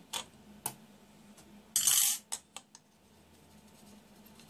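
Light clicks of small metal tools on a glass work surface, with one brief, louder metallic clatter about two seconds in as steel tweezers are set down on the glass.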